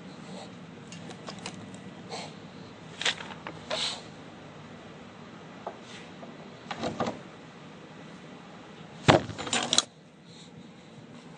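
Metal parts being handled and set in a bench vise: scattered clinks, rattles and knocks, the loudest a sharp knock with a short clatter about nine seconds in.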